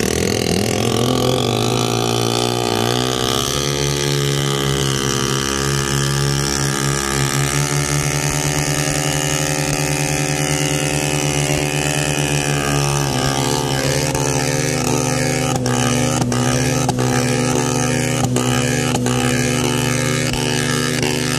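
Homemade boat's 12 hp two-stroke 250cc engine (a Robin EC25-type unit) running under way with a reworked muffler. Its note climbs over the first few seconds, holds steady, then shifts about halfway through. A handful of sharp clicks come later on.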